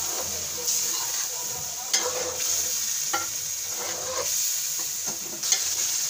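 Chicken karahi with freshly added whisked yogurt sizzling in an aluminium karahi while a metal spoon stirs and scrapes through it, with a few sharp knocks of the spoon against the pan. It is the start of the bhunai, frying the yogurt down until its water dries off.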